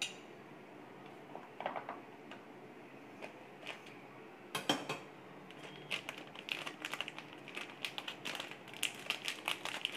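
Thin plastic sheet crinkling as it is handled and twisted around a chocolate-coated date: a few scattered rustles at first, then dense, rapid crackling from about halfway through.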